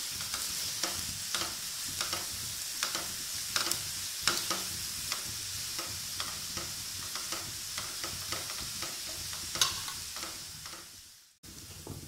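Chopped onions sizzling as they fry in mustard oil in a non-stick pan, with a wooden spatula scraping and knocking against the pan several times a second as they are stirred. The sound cuts out briefly near the end, then the sizzle comes back fainter.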